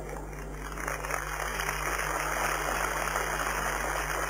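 Crowd applauding, the clapping swelling about a second in and then holding steady.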